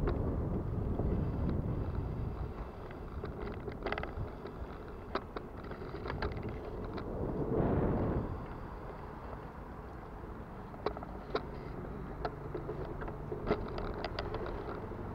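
Bicycle being ridden, rattling and clicking irregularly from a worn drivetrain. The owner says the shot bottom bracket, worn rear sprocket and chain make it sound like a bucket of bolts. Road and wind rumble run underneath, with a louder whoosh about halfway through.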